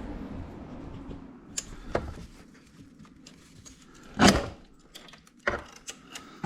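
Metal tools and parts being handled: a few light clicks, then a loud clank about four seconds in and another knock near the end.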